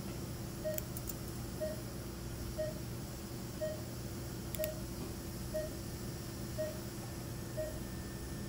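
Operating-room patient monitor giving its pulse beep, a short, even tone about once a second over a steady hum of theatre equipment.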